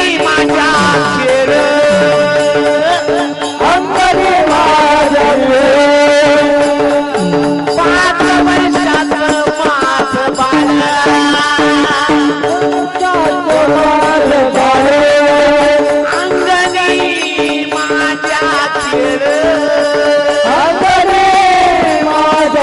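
Marathi kirtan singing: a powerful male voice holding long, ornamented notes over a steady drone, with hand percussion keeping time.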